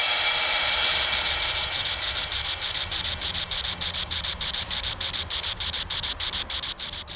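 Crickets chirping steadily in rapid, even pulses. A faint ringing tone fades out over the first few seconds.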